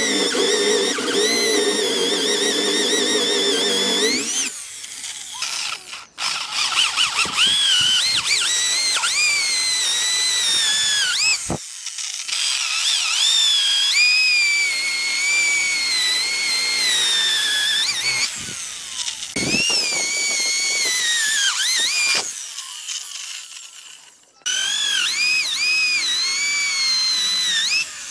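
Handheld electric power tool, such as a drill, working wood in several runs of a few seconds with short stops between them. Its high motor whine rises and sags in pitch as it spins up and bogs down under load.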